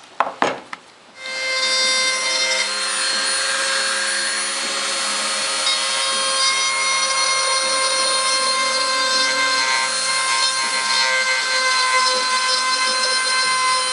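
A Dremel rotary tool starts up about a second in after a few clicks and runs with a steady whine, grinding cured body filler on fiberglass speaker pods.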